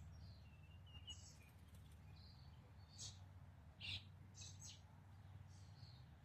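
Faint bird chirps: short, high calls about once a second, over a low steady hum.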